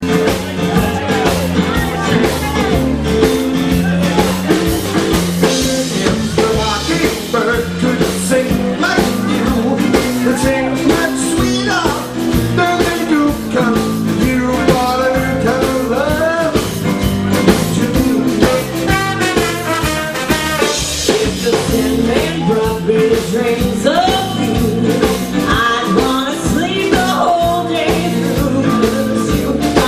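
Live band music with a man and a woman singing together through handheld microphones over an amplified sound system.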